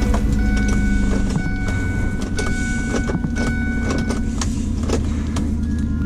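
Car engine running at a steady idle just after starting, with music playing over it.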